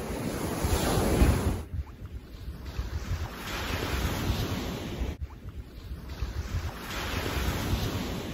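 Gentle surf washing onto a sandy beach, swelling and falling, with wind rumbling on the microphone. The sound drops abruptly twice where clips are joined.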